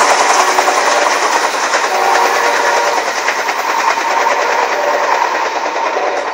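Train passing at speed close by: a loud, steady rush of wheels on rail that slowly fades toward the end.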